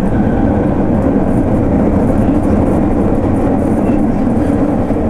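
Subway train running at speed through a tunnel, heard from inside the rear cab: a steady, loud rumble.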